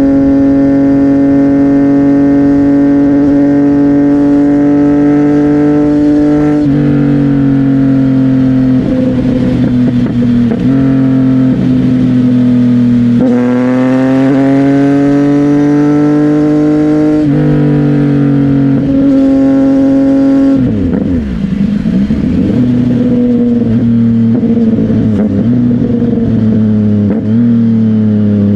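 CFMOTO 675NK's inline three-cylinder engine through an aftermarket Burnout titanium exhaust, running under way at a steady pitch between shifts and throttle changes. The pitch steps down about 7 and 17 seconds in, climbs around 13 seconds, and dips and wavers around 21 seconds as the bike slows and picks up again.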